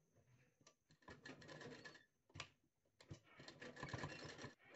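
Black straight-stitch sewing machine stitching in two short runs of rapid needle strokes, faint, with a few single clicks between the runs.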